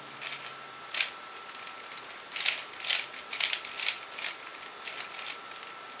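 Rubik's Cube (3x3) layers being turned by hand: quick runs of sharp plastic clicks and clacks, in short bursts with pauses between them and the busiest run in the middle.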